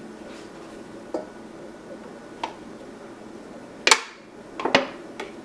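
A few separate sharp clicks and knocks of spice containers being handled, the loudest about four seconds in, followed by a quick double click.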